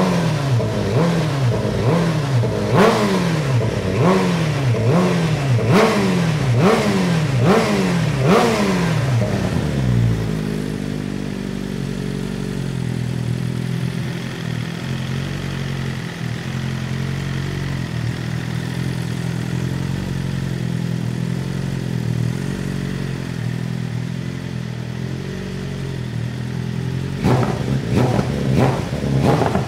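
BMW M1000RR's inline-four on a full titanium Arrow header and stock Akrapovic muffler, blipped about once a second for about ten seconds, then settling to a steady idle, then blipped again near the end. The engine is not yet fully warmed up.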